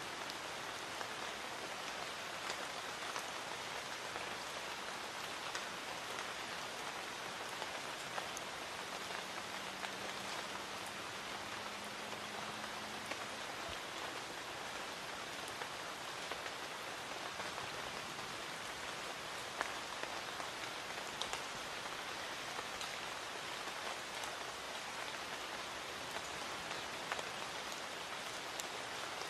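Light rain falling steadily in a garden: an even hiss of rain with scattered individual drops ticking sharply on surfaces.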